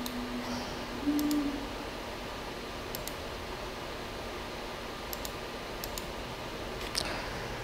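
Scattered sharp clicks from working a laptop, about five spread over several seconds, over a steady low hum. A short, louder low tone sounds about a second in.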